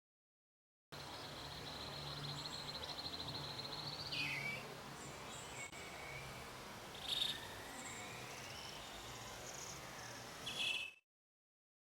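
Outdoor ambience: a steady, pulsing insect buzz for the first few seconds, then a handful of short bird calls, the first dropping in pitch, with more chirps a few seconds later. It all cuts off suddenly near the end.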